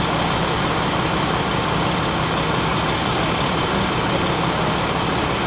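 Heavy truck engine idling steadily: a constant low hum under an even wash of noise.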